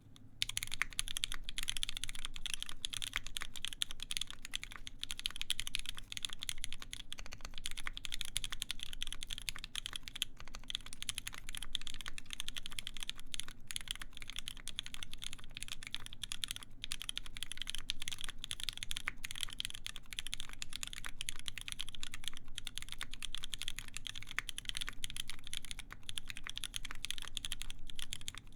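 Steady, continuous typing on a mechanical keyboard: a SINGA x TGR Unikorn with lubed vintage Cherry MX Black linear switches on a full brass plate with GMK keycaps. A dense stream of keystrokes begins about half a second in.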